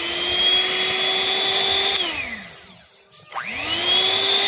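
KW MART 7-speed electric hand mixer running with its beaters spinning free in the air, a steady motor whine. The whine winds down and stops about two seconds in, then starts again and spins back up about a second later.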